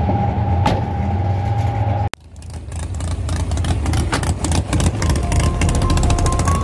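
Engines running in a drag-racing pit area. About two seconds in the sound cuts out, and a race truck's engine fades up idling loud, rough and uneven.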